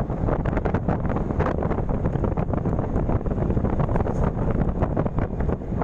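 Wind buffeting the microphone of a moving two-wheeler, a steady low rumble.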